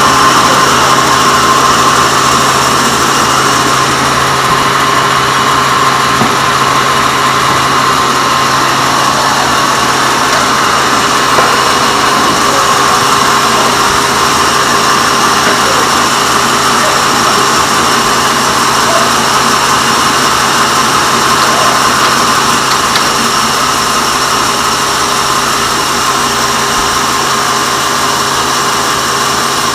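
Band sawmill running steadily: a continuous machine drone with a steady high whine over a low hum.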